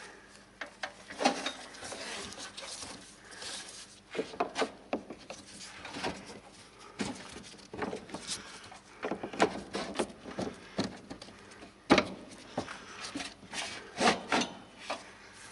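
Short, irregular scraping and rubbing strokes of hand work on the rear brake hardware at the wheel hub, with scattered clicks and one sharp knock near the end.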